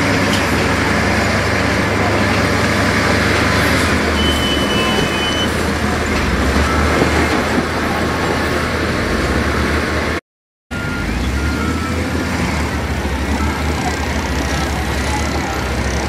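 Diesel engines of an SDLG wheel loader and a dump truck running steadily under work load, with a constant low drone as the loader pushes broken rock. The sound cuts out for about half a second a little past the middle.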